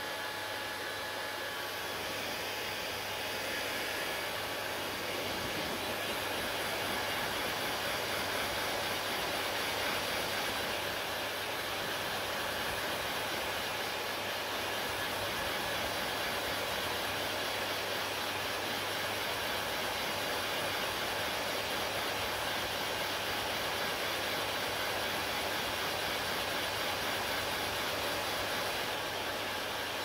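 Hand-held hair dryer blowing steadily: a continuous rush of air over a low motor hum, getting a little louder a few seconds in.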